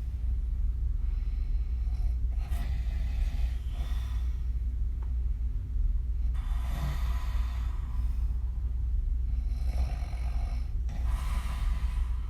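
A woman snoring through an open mouth while lying on her back, with several rasping breaths a few seconds apart. A steady low hum runs underneath.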